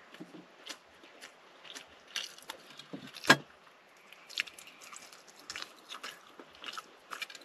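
Someone eating close by: chewing, with scattered light clicks of a spoon against a metal cooking pot and one sharp, loud clink a little over three seconds in.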